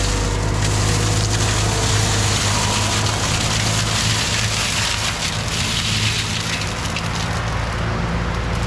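CAT 259D3 compact track loader's diesel engine running steadily under load while its Gyrotrac forestry mulcher head grinds brush, a constant engine hum under a dense hiss of chewed wood and debris.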